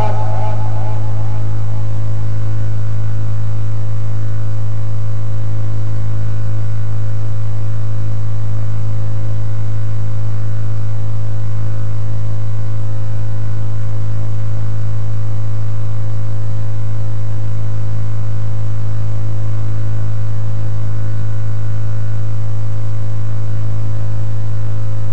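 Loud, steady electrical mains hum: a low drone with fainter, higher steady tones above it, unchanging throughout.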